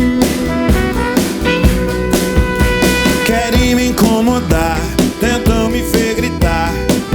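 Live rock band playing an instrumental passage with drum kit.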